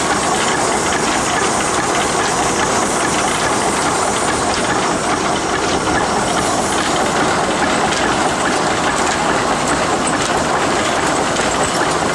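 Narrow-gauge train rolling along the track: a steady rumble and hiss with faint clicks of the wheels over the rail joints.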